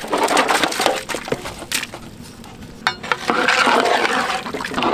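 Large pieces of boiled beef going into a big pot of boiling masala stock: splashing and bubbling with a few sharp knocks, and busier stirring and sloshing in the second half.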